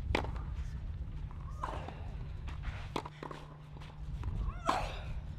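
Tennis ball struck by racket during a clay-court rally: three sharp hits, the last near the end together with a player's short grunt, over a steady low hum and rumble.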